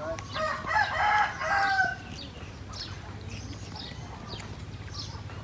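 A rooster crowing once, a loud call lasting just under two seconds near the start, with small birds chirping in short high notes around it.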